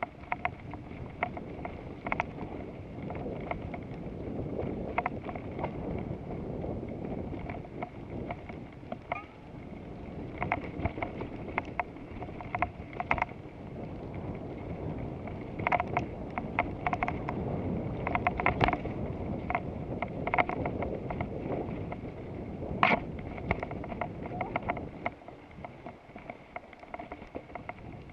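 Bicycle ridden along a dirt trail: a steady rush of wind over the camera microphone and tyre noise, with frequent sharp clicks and rattles from the bike over bumps.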